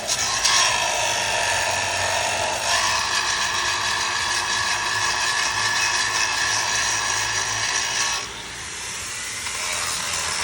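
Angle grinder running under load on metal, a steady high whine whose tone shifts about two and a half seconds in and drops in level about eight seconds in.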